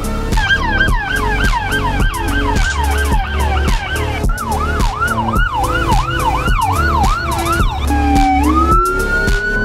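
Electronic emergency-vehicle sirens: a fast yelp, then a somewhat slower yelp from about four seconds in, then a rising wail near the end. Background music with a steady beat plays underneath.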